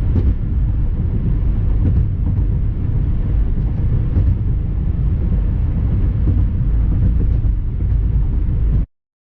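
Car driving at steady speed, a loud continuous low rumble of road and engine noise, which cuts off abruptly near the end.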